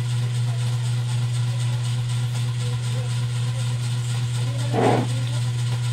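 A steady low hum under a faint hiss, with one brief louder sound about five seconds in.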